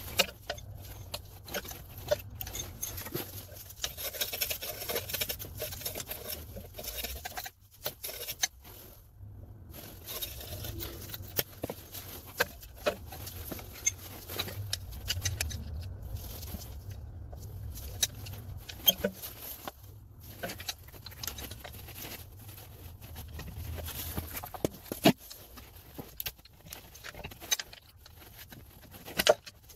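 Irregular scraping and small metal clicks of hand tools prying at a seized rear lower ball joint on a BMW E60 suspension arm, with a few sharper knocks near the end.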